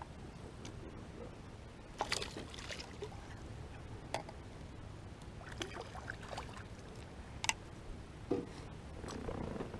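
A few scattered clicks and knocks in a fishing boat over a low steady hum, with small handling sounds growing busier near the end.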